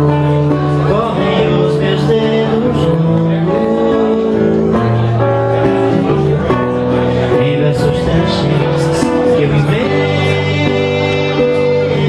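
A man singing to his own acoustic guitar accompaniment, playing live into a microphone.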